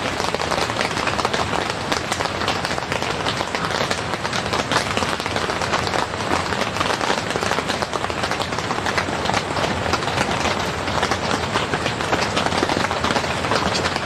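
Heavy rain falling on the tent fabric, heard from inside the tent as a steady, dense hiss of many fine drop hits.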